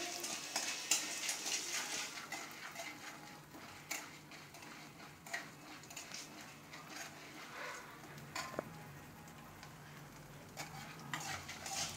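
Mustard seeds and dals frying in hot oil in an aluminium kadai: faint sizzling with scattered sharp pops as the mustard seeds splutter, and now and then a steel ladle scraping the pan.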